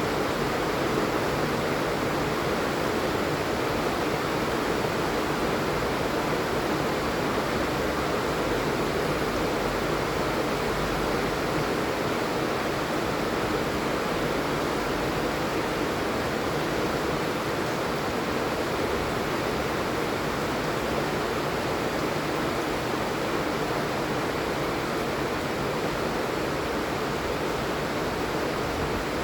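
Steady rain falling, an even continuous hiss without distinct drops or breaks.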